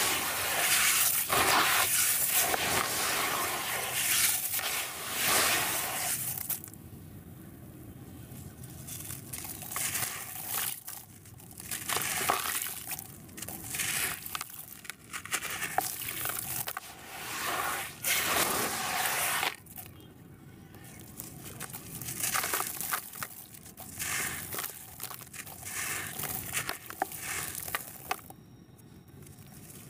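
Hands crushing and crumbling sand-and-cement chunks in a bucket of water: a gritty crunching and crackling as the pieces break up and the grit falls into the water. It is densest and loudest for about the first six seconds, then comes in shorter, quieter spells.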